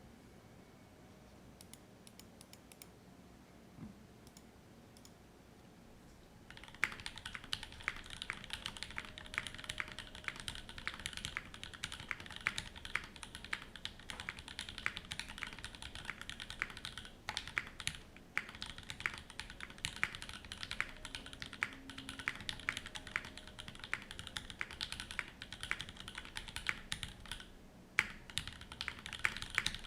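Fast typing on a Monstargears Sangeo60 gasket-mounted mechanical keyboard with lubed, filmed Alpaca V2 linear switches: a dense run of key clacks that starts about seven seconds in, after a stretch of low level with a few faint clicks. The typing pauses briefly near the end, followed by one louder keystroke.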